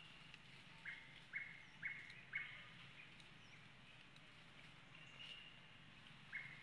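Faint bird calls: a run of four short chirps about half a second apart, a second in, and a thin held high note near the start and again later.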